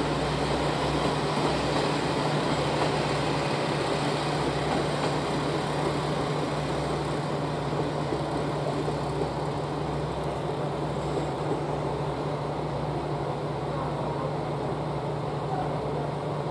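Kiha 40-series diesel railcar train running through the station yard: a steady low engine hum and rumble that slowly fades as the train moves away.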